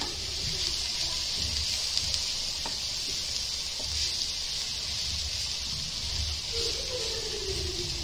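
Chicken, potato and capsicum filling sizzling in a non-stick frying pan as it is stirred and pushed around with a silicone spatula: a steady hiss with soft, repeated strokes of the spatula against the pan.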